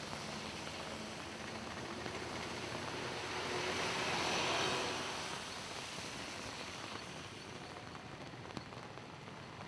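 Heavy rain falling, with a vehicle driving through floodwater on the road: a splashing whoosh of tyres and spray swells to its loudest about four seconds in and fades away.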